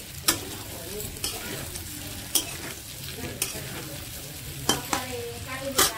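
Metal spatula stirring and scraping chicken and potatoes in a kadhai, over a steady sizzle of frying masala. The spatula clacks against the pan about once a second, with the loudest scrapes near the end.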